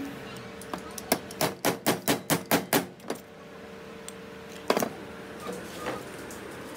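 Ball bearing being driven onto an electric motor rotor's shaft with a metal pipe over the shaft: a quick run of about eight sharp metal knocks, about four or five a second, then one heavier knock about two-thirds of the way through.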